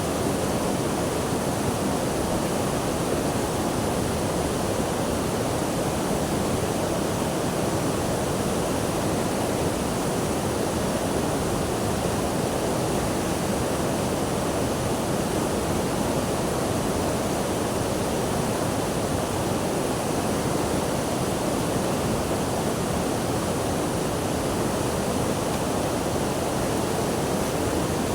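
Rushing water, a steady even wash of noise with no breaks or changes.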